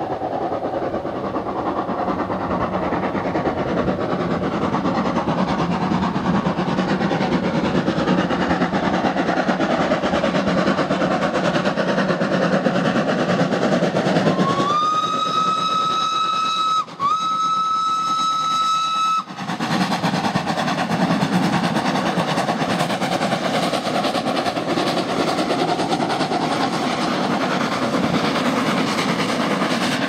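Two 0-6-0 saddle tank steam locomotives working a train hard, their exhaust a steady, continuous sound. About halfway through, a steam whistle sounds two long blasts, one straight after the other, the first sliding up into its note.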